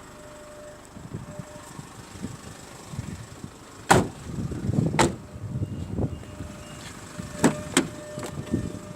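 Clunks and clicks from the rear interior fittings of a Nissan Qashqai being handled, as the rear seat armrest is worked. The loudest clunks come about four and five seconds in, with two sharper clicks near the end.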